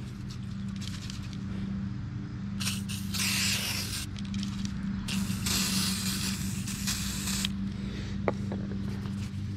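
WD-40 aerosol can spraying in two hissing bursts, about a second and a half and then about two and a half seconds long, to loosen tar. A steady low hum runs underneath.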